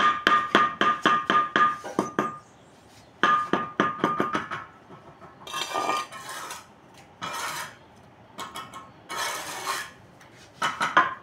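A metal hand tool knocking on brick in quick runs of ringing taps, about four or five a second, with a pause partway. Several scraping sounds fill the middle before the taps start again near the end.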